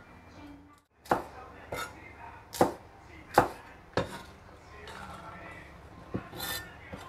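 Kitchen cleaver chopping green chilies on a bamboo cutting board: about five sharp chops roughly a second apart, then softer sweeping and two lighter knocks near the end.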